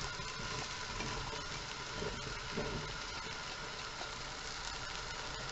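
Chopped onions frying in olive oil in a stainless steel pot, a steady sizzle, while chunks of raw mushroom are tipped in by hand.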